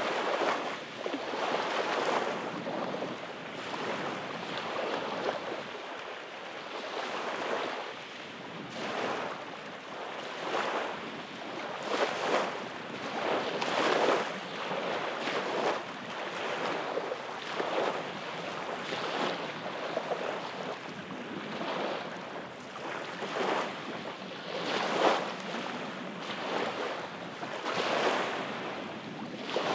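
Small waves breaking and washing up onto a sandy beach, a steady hiss of surf that swells with each wave every second or two.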